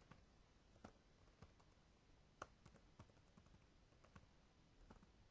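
Faint keystrokes on a computer keyboard, typed at an irregular pace.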